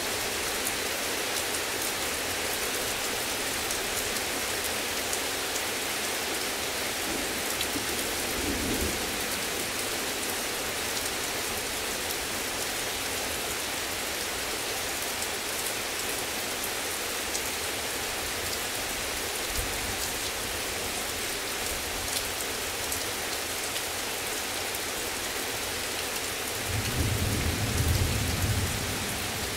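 Heavy rain falling steadily in a thunderstorm. There is a brief low rumble of thunder about nine seconds in, and a louder rumble of thunder near the end.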